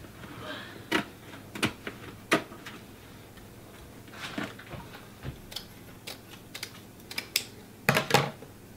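Scissors snipping through stainless steel window screen: a run of sharp, irregular clicks, spaced out at first and quicker later on, with the loudest pair of clicks near the end.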